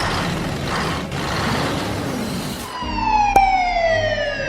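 A rushing whoosh, then a siren tone that glides steadily downward for about two seconds, with a sharp click partway through the glide.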